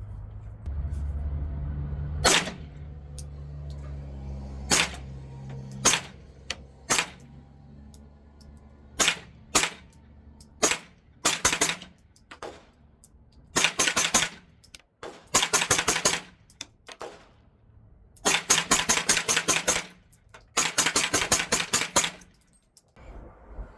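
Suppressed 9mm CZ Scorpion SBR firing: single shots a second or two apart, then several quick strings of rapid shots.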